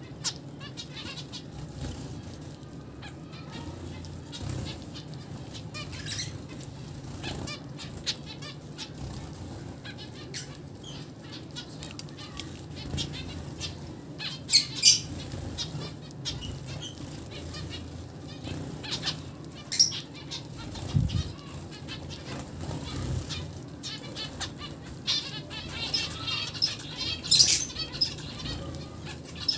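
Zebra finches fluttering their wings and giving scattered short calls and chirps, with flurries of activity that grow busiest near the end.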